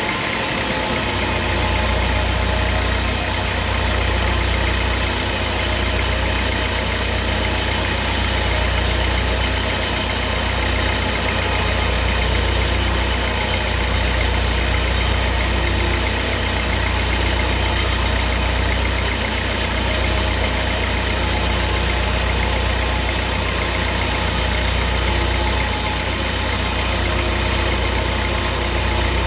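Sawmill machinery running steadily: a continuous engine-like drone with a low hum that swells and eases slowly, under a broad hiss.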